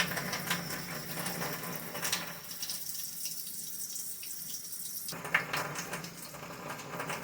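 Hot water running from a tap, a steady hiss that thins out in the middle for a few seconds, over a steady low hum.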